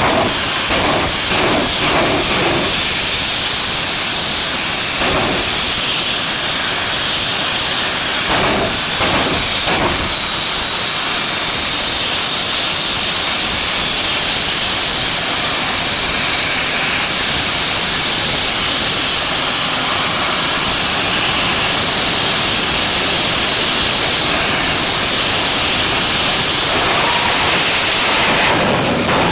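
Jet dragster's turbine engine running on the starting line: a loud, steady hiss with a faint high whine, broken by a few sharp pops in the first ten seconds. It swells near the end as the afterburner lights for the launch.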